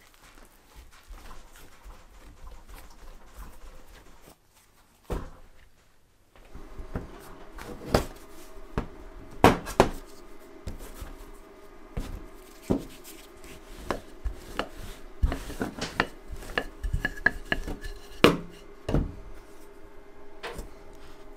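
Pierogi dough being worked by hand and pressed with a round cutter on a metal countertop: soft rustling and squishing of the dough, then scattered sharp knocks and taps on the counter.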